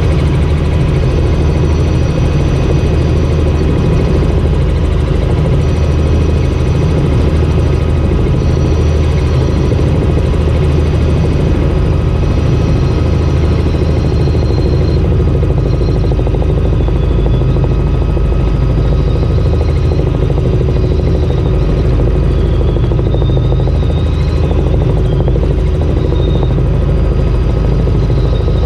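Small helicopter in flight heard from inside the cockpit: a loud, steady rotor and engine drone, deep and even, with a few faint high whines on top.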